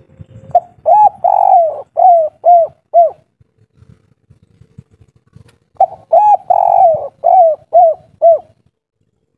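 Spotted dove cooing two song phrases a few seconds apart, each a drawn-out coo followed by three short quick coos, the 'kuk 3' song type.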